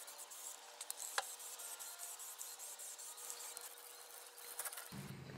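Faint scratchy rubbing and rustling with scattered small clicks and a brief squeak about a second in; a low hum comes in near the end.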